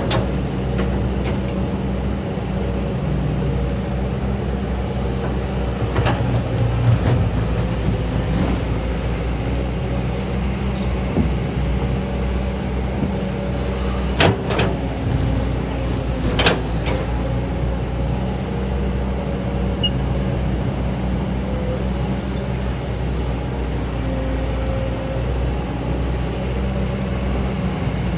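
Excavator's diesel engine running steadily at work, with a few sharp metallic knocks, three of them standing out.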